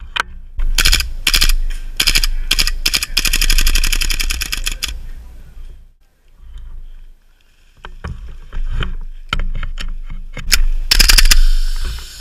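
Airsoft guns firing: a few single shots, then a long rapid full-auto burst from about two to five seconds in, and after a short lull more scattered shots and short bursts near the end.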